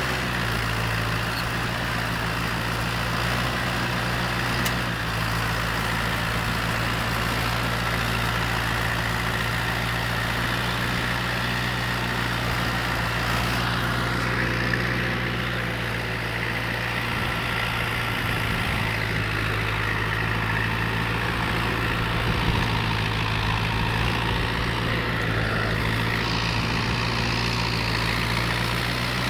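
John Deere farm tractor's diesel engine running steadily under load while pulling a plough, heard close from the driver's seat.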